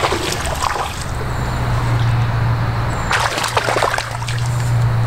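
A hooked smallmouth bass splashing and thrashing at the water's surface while being played in, in two bouts: a short splash at the start and a longer flurry about three seconds in. A steady low hum runs underneath.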